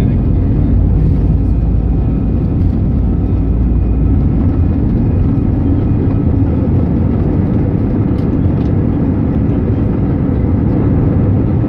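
Airbus A320 jet engines at takeoff power, heard from inside the passenger cabin: a loud, steady rumble with a faint high whine. The deepest part of the rumble lessens about two-thirds of the way through.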